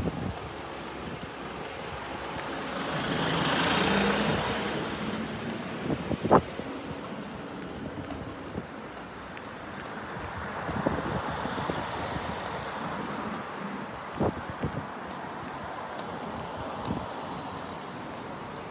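Street traffic: a road vehicle passes close by, loudest about four seconds in, over steady traffic noise, with a few short sharp knocks later on.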